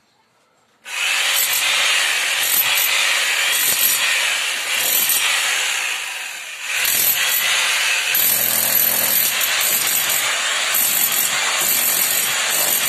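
Handheld electric hammer drill cutting into a brick wall to chase a channel for wiring. It starts about a second in, eases off briefly around the middle, then runs on.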